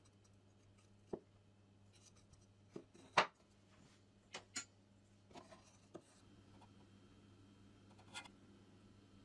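Scattered light knocks and clicks, about eight in all, the loudest a little after three seconds in, over a faint steady low hum. No saw motor is running.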